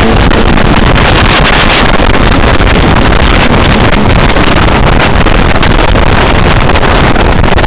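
Jet boat running along at speed: a loud, steady mix of engine and water-jet noise with heavy wind buffeting the microphone.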